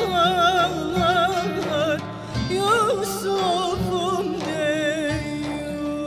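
Background music: a voice singing a wavering, heavily ornamented melody over a steady held drone and low accompaniment.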